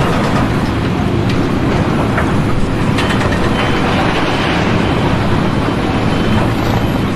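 Steady, loud rumble of a heavy engine running, with a few faint clicks and knocks over it.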